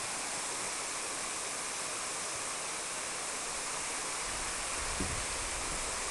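Steady rush of a waterfall, an even hiss of falling water. About four seconds in, a low rumble joins it.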